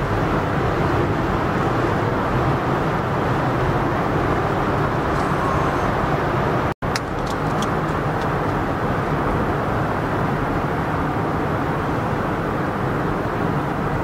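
Steady road and engine noise inside a car's cabin while driving through a highway tunnel. The sound cuts out for an instant about halfway through.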